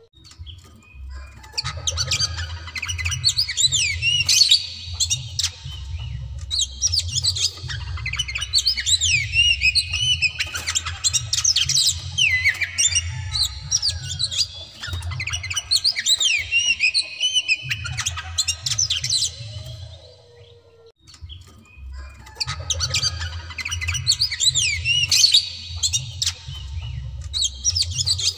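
Oriental magpie-robin in full, insistent song: long runs of loud, rapid, varied whistles and sharp squawky notes. The song breaks off for about a second and a half roughly two-thirds through, then starts again.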